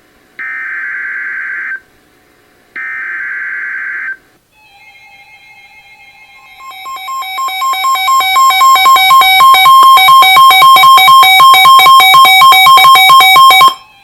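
NOAA Weather Radio emergency alert: two screeching SAME digital header bursts, each about a second and a half long, followed by the long warning alert tone. The alert tone has a steady pitch near 1 kHz, pulses a few times a second, swells from faint to very loud and cuts off suddenly near the end. This sequence signals that a new warning is about to be read.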